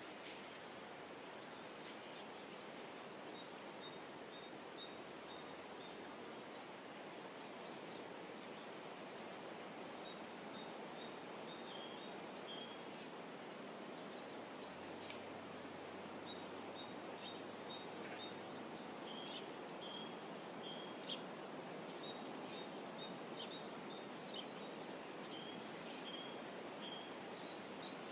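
Small birds chirping in short, high phrases of quick notes, repeated every few seconds, over a steady outdoor hiss.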